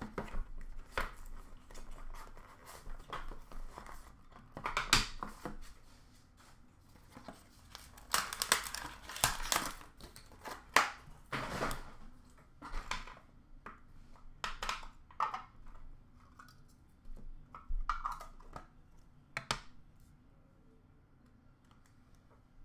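Plastic wrapping crinkling and tearing and cardboard rustling as a sealed trading-card box is unwrapped and opened, in irregular bursts with a few sharp taps and clicks.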